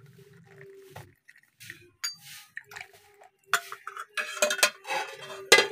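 Steel pot and tea strainer clinking and knocking against ceramic mugs as milk tea is strained into them, with a quick run of louder clatters near the end.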